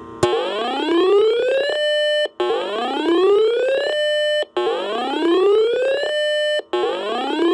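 Electronic whoop siren: a rising wail that climbs for about a second and a half, holds briefly at the top and cuts off, repeating about every two seconds; it sounds three full times, and a fourth is cut short near the end.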